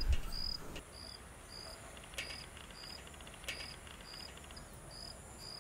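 An insect chirping in short, high-pitched pulses, about two a second, with a thin steady high whine behind it and a few faint taps.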